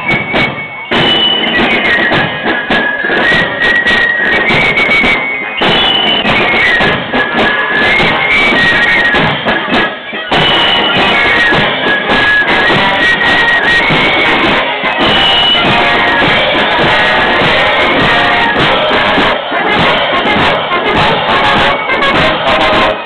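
Marching band playing a march at close range: a high, shrill melody from fifes and flutes over snare and bass drum strokes, with the chiming of bell lyres, as a drum-and-fife corps goes by. Brass instruments come in as the next band passes.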